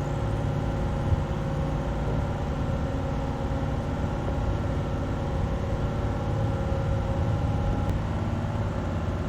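Motor yacht's engines running steadily at cruise under way, a constant low drone with a steady hum of engine tones.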